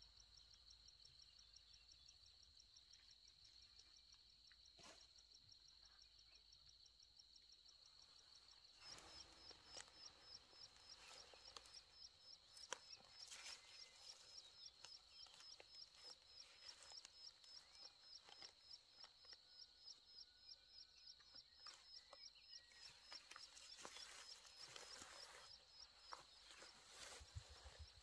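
Faint insect chorus: a steady high buzz with a rapid, regular chirping over it. From about nine seconds in, soft scattered rustles and clicks are heard.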